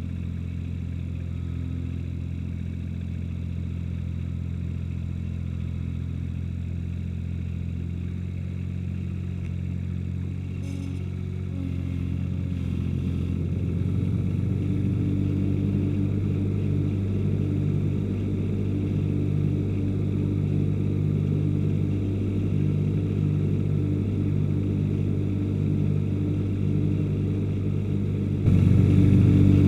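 Ransomes HR300 mower's engine running steadily, then picking up and getting louder about twelve to fourteen seconds in. It jumps suddenly louder again just before the end.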